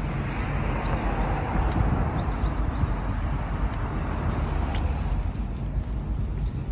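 Steady road traffic noise, strongest in the low rumble, with a bird chirping in short falling notes over the first half. A few light ticks come near the end.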